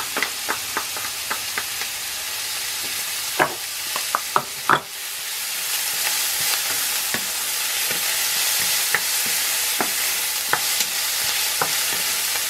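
Chopped onion and garlic sizzling in butter and oil in an enamel pan, stirred with a wooden spoon that knocks against the pan in irregular clicks. The sizzle gets louder about five seconds in.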